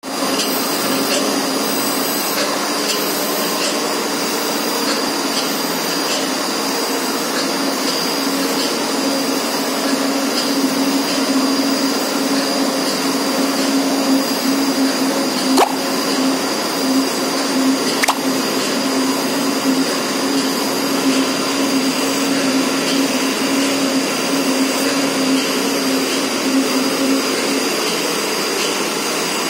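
Automatic surface grinder running: a steady motor hum and high whine from the spindle, with the abrasive wheel grinding a metal block flooded with coolant.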